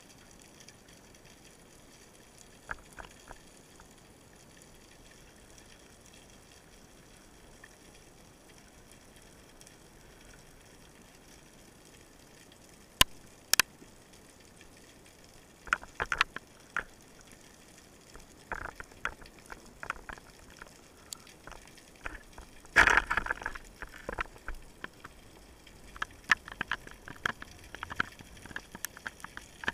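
Underwater sound during a spearfishing dive: a steady faint hiss, then from about halfway through scattered sharp clicks and knocks, with a louder run of crackling about three-quarters of the way through.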